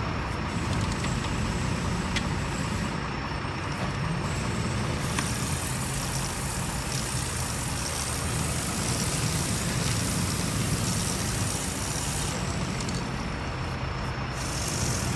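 Aerosol chain lube hissing in long sprays onto a motorcycle drive chain as the rear wheel is spun by hand, with a short break in the hissing near the end before it starts again. A steady low rumble runs underneath.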